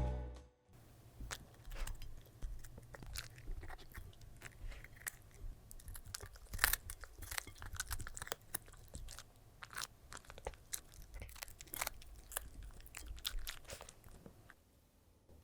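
A dog chewing and crunching food, an irregular run of crisp crunches and mouth clicks that stops shortly before the end.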